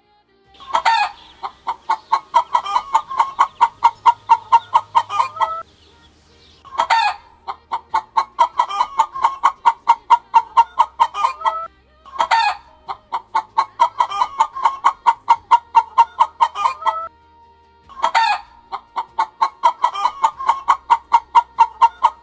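A bird call in four runs of about five seconds each, with short, fast notes at about five a second, like a fowl's clucking.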